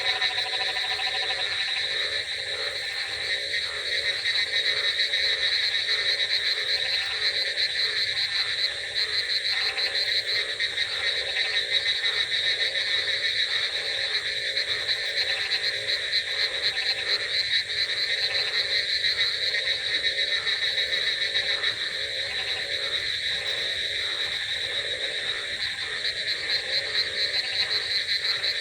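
A chorus of many frogs calling at once: a dense, continuous high trilling, with lower croaks pulsing in a steady repeating rhythm beneath it.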